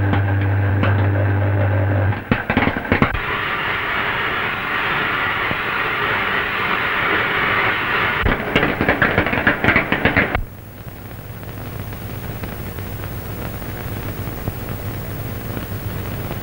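Electrical sound of high-voltage radio transmitting apparatus with coils and valves. It starts with a steady low hum for about two seconds, then turns into a crackling, sizzling hiss full of clicks. The crackle cuts off suddenly about ten seconds in, leaving a faint low hum.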